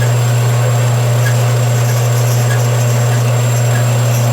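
Band saw running steadily while cutting through thick cast brass: a constant low hum with a faint tick repeating about every half second.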